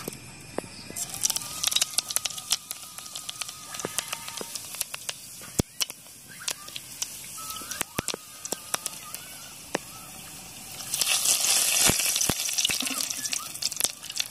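Cumin seeds and dried red chillies spluttering in hot oil in an aluminium kadai, a dense patter of small pops and crackles. About eleven seconds in, a louder sizzle rises for a couple of seconds as a bay leaf goes into the oil.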